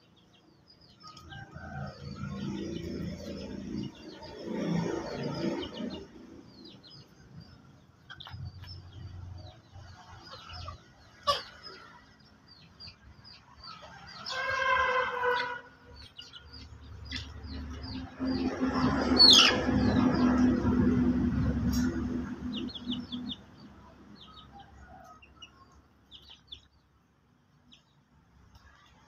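Domestic chickens calling: repeated short cheeps and clucks, with one short rooster crow about halfway through and a louder stretch of flock noise a few seconds after it.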